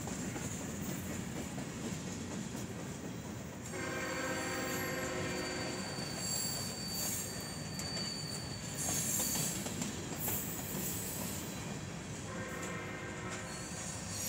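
Freight cars rolling past with a steady rumble of steel wheels on rail. A thin, high wheel squeal starts about four seconds in and lasts several seconds. A distant multi-note locomotive horn sounds twice, about four seconds in and again near the end.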